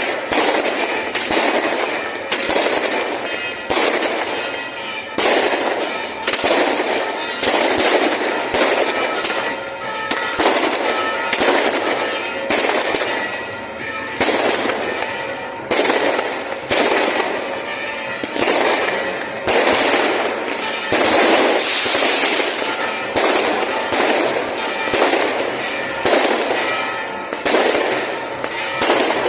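Fireworks display: shells bursting one after another at about one bang a second, each bang fading out quickly before the next.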